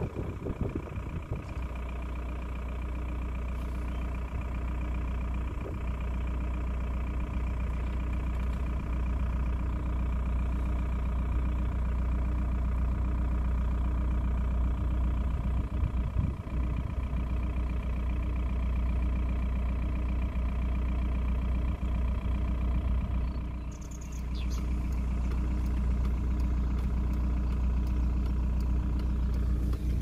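A car driving along a road, heard from inside the cabin: a steady engine and tyre rumble with a constant hum, which dips briefly and changes character near the end.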